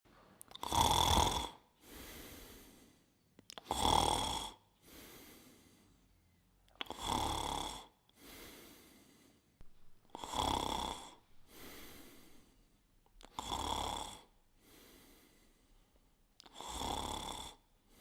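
A person snoring in a slow, steady rhythm: six loud snores about three seconds apart, each followed by a softer breath.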